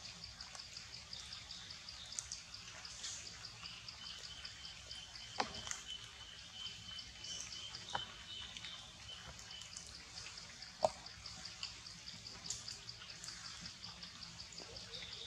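Outdoor ambience dominated by an insect, likely a cricket, chirping in a fast, even train of high pulses, with a thin steady high tone for several seconds in the middle. A few sharp clicks stand out, the loudest near the end.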